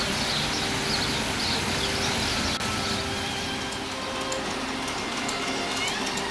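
Water splashing from a fountain's small jets into a tiled channel, a steady hiss. About halfway through, faint background music with wavering high tones comes in.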